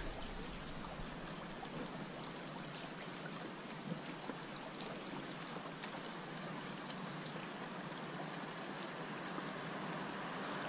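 Small stream's flowing water, a steady even rush with a few faint ticks scattered through it.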